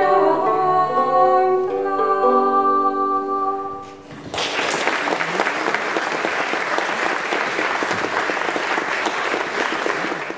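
Tudor-style early-music band: a voice singing with instrumental accompaniment, closing on held notes, which end about four seconds in. Audience applause then breaks out and carries on steadily.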